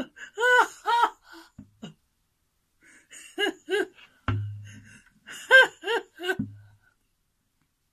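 A man laughing in three short bursts of 'ha-ha' notes, with two sharp knocks about four and six seconds in, each followed by a brief low ringing tone.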